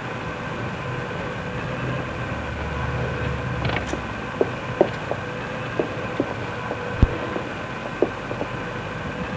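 Conveyor belt running with a steady mechanical hum. Light clicks and knocks of cakes, boxes and utensils being handled start about four seconds in and recur through the rest.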